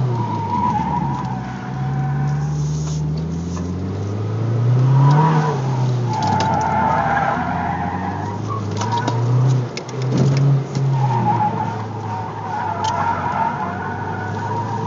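Mazdaspeed3's turbocharged 2.3-litre four-cylinder engine heard from inside the cabin, revving up and falling back again and again while the car is driven hard through an autocross course. Tyres squeal in several stretches as the car turns.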